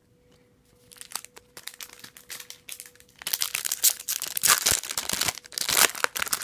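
Plastic Yu-Gi-Oh booster pack wrapper crinkling and being torn open, starting about a second in and getting louder about three seconds in.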